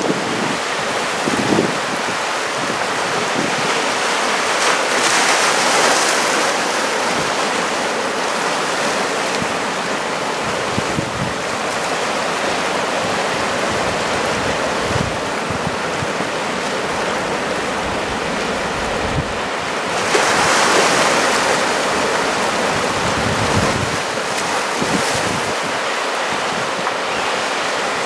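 Ocean surf of about 1.5 m breaking and washing, with louder surges about five seconds in and again around twenty seconds in. Wind buffets the microphone with low rumbles throughout.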